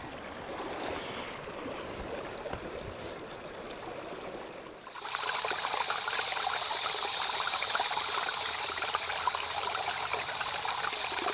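A shallow stony stream flowing, with feet sloshing through the water during the first few seconds. About five seconds in, a much louder, steady rush of running water begins and holds.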